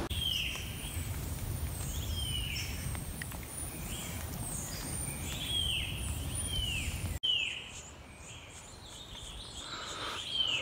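A bird calling over and over with a short falling chirp, about once a second, with fainter high-pitched calls behind it. A steady low rumble underneath cuts off abruptly about seven seconds in.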